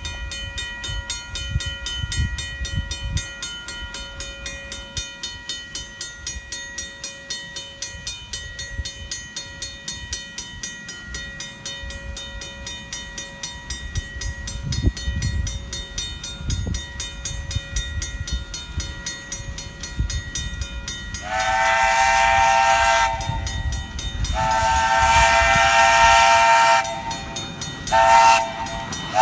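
Railroad grade-crossing mechanical bell ringing with steady, evenly repeated strokes. From about two-thirds of the way in, a small live-steam locomotive's whistle joins it: two long blasts, a short one, and the start of another long one. This is the long-long-short-long grade-crossing whistle signal of an engine approaching the crossing.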